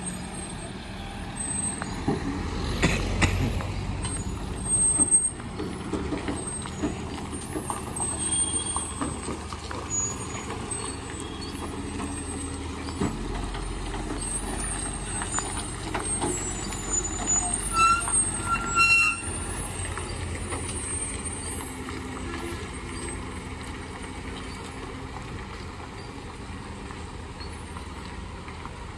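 Heavily loaded multi-axle lorry's diesel engine running under load as it takes a hairpin bend, with a few brief louder bursts, including short high squeals about two-thirds of the way through. The engine sound eases off slightly near the end as the lorry pulls away.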